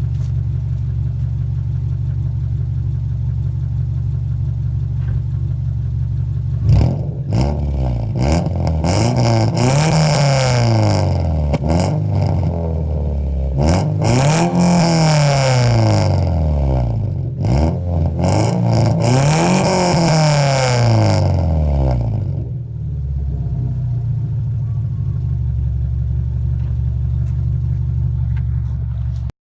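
Straight-piped exhaust of a Subaru Impreza's flat-four boxer engine, idling with a low rumble, then revved three times, each rev rising and falling over about four seconds, before settling back to idle.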